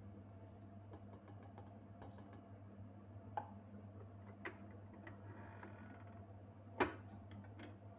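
Faint steady low electrical hum with scattered light clicks and taps, one sharper click about seven seconds in.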